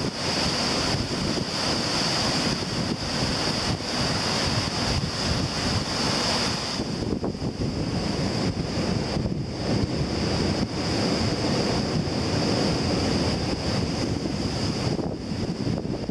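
Heavy storm surf crashing and churning against a rocky shore, with strong wind buffeting the microphone. The high hiss eases about seven seconds in.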